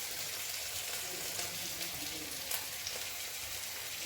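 Thin fish curry boiling hard in a pan: a steady bubbling hiss, with a couple of faint clicks.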